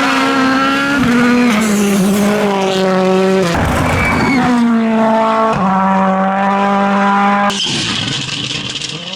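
2017 World Rally Car engine (1.6-litre turbocharged four-cylinder) running at high revs on a rally stage. Its note steps down in pitch about a second in and breaks up briefly around three and a half seconds before picking up again. Near the end it changes abruptly to a rougher, noisier sound without a clear engine note.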